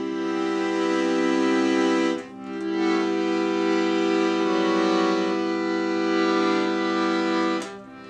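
Music of slow, sustained chords, each held for several seconds, with a brief dip in volume at a chord change about two seconds in and again near the end.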